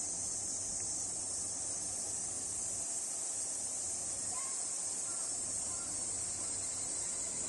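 A chorus of cicadas drones in a steady, unbroken high-pitched buzz.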